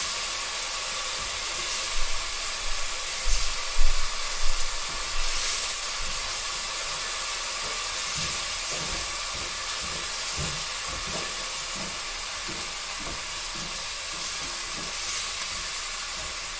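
Ground spices frying in hot vegetable oil in a pot: a steady sizzle as they cook until they turn yellow. A few brief knocks come between about two and five seconds in.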